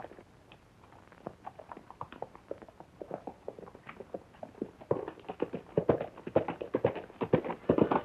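Horse's hoofbeats at a fast pace, a rapid run of sharp strikes on the ground. They are faint at first and grow louder about five seconds in.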